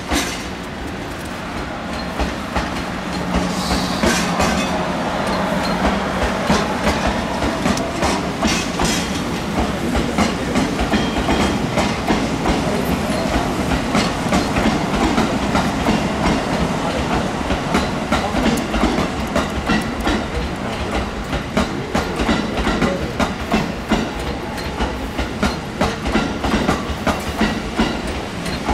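E001 series 'Train Suite Shiki-shima' train passing, its wheels clacking over rail joints and points in a steady run of clicks that grows denser in the second half.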